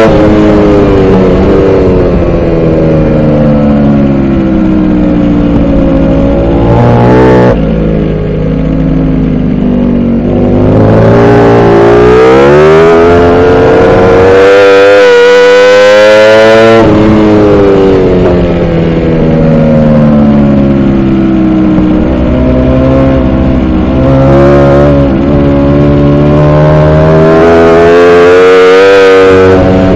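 Onboard sound of a Ducati Panigale V4 R's V4 engine at full race pace, revs sweeping up and falling away again and again through the corners, with sudden sharp drops in revs about seven and seventeen seconds in.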